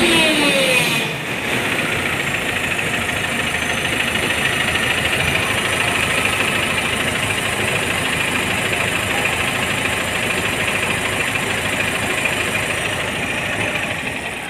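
A crane's engine running steadily at idle, checked by ear for abnormal sounds; a louder sound in the first second drops away.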